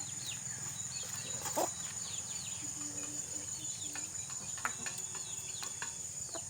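Insects droning steadily at a high pitch, with birds chirping in many short, falling calls, and a single sharp knock about one and a half seconds in.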